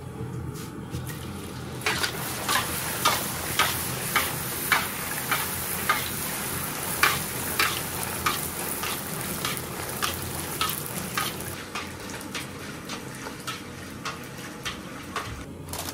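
Pani puri (fuchka) dough discs deep-frying in hot oil in a large iron kadai: a strong sizzle that rises about two seconds in and eases after about eleven seconds. A slotted ladle stirs the puris and clinks against the wok about twice a second.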